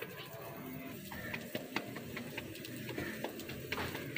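Irregular light clicks and taps, with a few sharper slaps near the end as a ball of bajra (millet) dough is patted between the palms to shape a roti.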